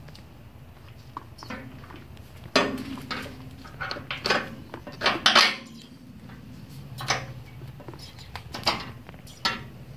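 Metal clinks and clanks as a shock absorber's top end and its mounting bolt are worked by hand into a steel dual shock mount bracket: a string of sharp knocks that starts about two and a half seconds in and is loudest around the middle.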